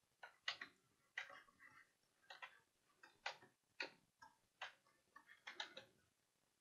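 Computer mouse and keyboard keys clicking, about a dozen short, faint clicks at irregular intervals.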